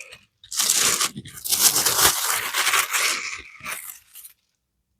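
Packing material rustling and tearing as it is pulled away from a heavy statue piece, a run of scratchy, crackling tears that stops about four seconds in.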